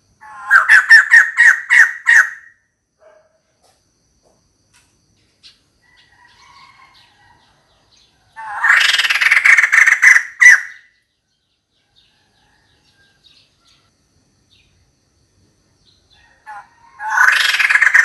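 Female white-crested laughingthrush giving loud laughing calls, calling for a mate, in three bouts. The first is a rapid run of sharp notes, the second, about eight seconds in, is a denser chattering burst, and the third is another run of notes starting near the end.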